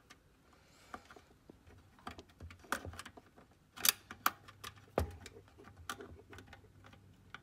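Faint, irregular clicks and taps of locking forceps and small metal parts against the sheet-metal frame of an opened Kodak Carousel slide projector as the solenoid's adjustment plate and screw are worked into position, with a sharper pair of clicks about four seconds in and a knock about a second later.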